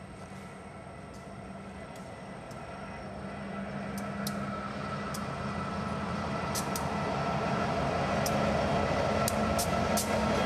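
Norfolk Southern EMD SD80MAC diesel-electric locomotive with its 20-cylinder two-stroke EMD 710 engine, approaching and passing at the head of a freight train. Its steady engine drone grows louder throughout, with sharp, irregular ticks from about four seconds in.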